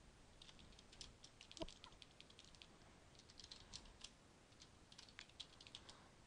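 Computer keyboard typing: faint, irregular runs of quick key clicks.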